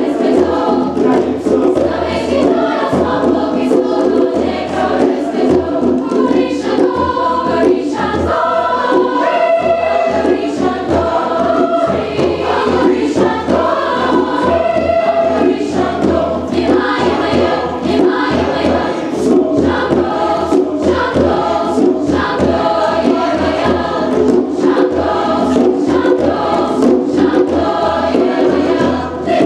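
Large mixed choir singing with hand-drum accompaniment, frequent sharp drum strokes running under the voices.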